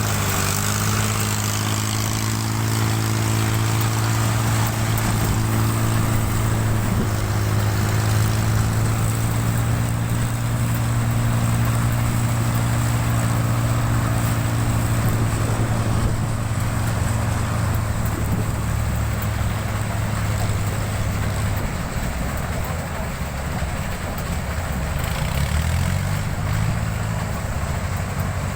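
Kubota rice combine harvester running steadily while harvesting: a constant engine hum over a hiss of machinery, with the engine note shifting a little about 21 seconds in.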